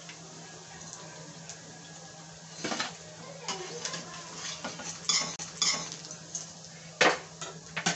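A metal spoon scraping and clinking against a kadhai as fried corn tikkis are lifted out of the hot oil, over a faint sizzle of the oil. The clinks and scrapes start about three seconds in and come in a scattered series, the loudest near the end.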